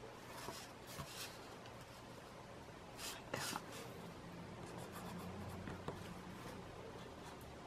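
Pen writing on a small square paper tile: faint scratching strokes in short bursts, the strongest about three seconds in.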